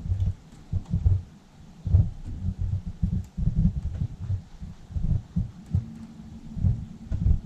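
Low, irregular rumbling thumps of wind buffeting the microphone. A steady low hum from the boat's electric trolling motor joins about two seconds in and grows stronger near the end.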